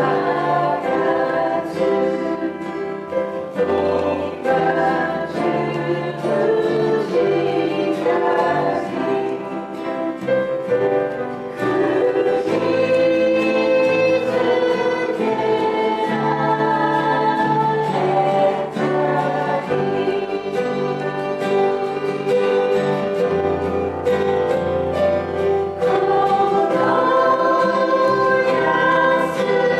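Live worship song: sung vocals with acoustic and electric guitar accompaniment, continuous throughout.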